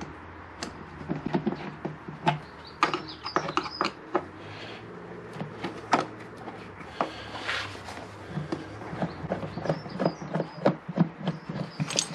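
Screwdriver working the screws out of a motorcycle's plastic airbox lid: irregular small clicks, ticks and brief scrapes of tool, screws and plastic being handled, over a faint steady low hum.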